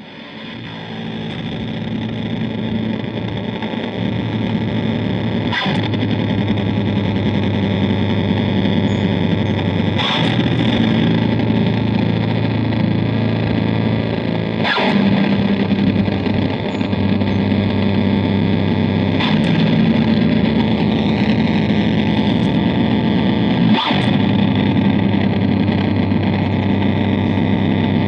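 Electric bass played through heavy distortion from a multi-effects pedal: a harsh, sustained noise drone that swells up over the first few seconds. A fresh note is struck about every four and a half seconds.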